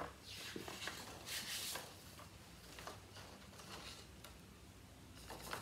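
Quiet rustling of sheet-music paper being handled at a piano's music stand, with a few light clicks and taps later on.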